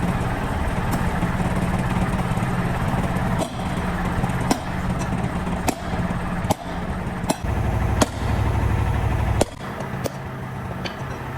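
An engine idling steadily, its note deepening for about two seconds past the middle, with about eight sharp knocks roughly a second apart.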